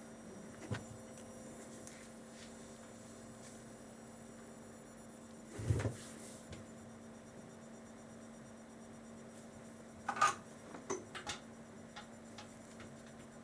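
A steady low electrical hum, with a few light clicks and taps from handling small parts and tools at a workbench. There is a soft thump about six seconds in and a cluster of clicks near the end.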